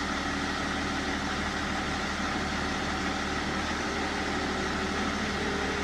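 BMW engine idling with a steady hum. About four seconds in, a faint tone starts and slowly rises in pitch as the electric air-conditioning fan begins to spin up, switched on by its control module's changed PWM signal.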